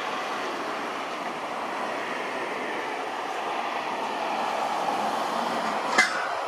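Jet engine noise of a Boeing KC-767 tanker on landing approach: a steady, distant rush that swells slightly toward the end. A sharp click about six seconds in.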